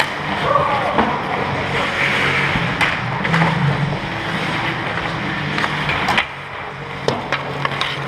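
Ice hockey skate blades scraping and carving on the rink ice close to the net, over a low steady hum, with a few sharp clacks of sticks and puck, one about three seconds in and several near the end.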